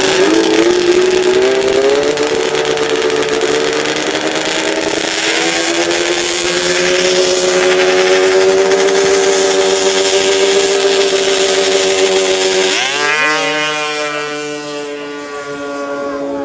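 Racing snowmobile engine held at high revs on the start line, its pitch creeping slowly upward. About thirteen seconds in it launches: the pitch dips, then climbs steeply through the gears, and the engine grows fainter as the machine runs away down the track.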